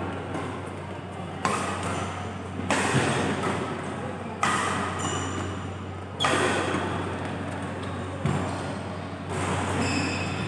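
Badminton rally: rackets striking the shuttlecock five times, one sharp hit every one and a half to two seconds, over a steady low hum.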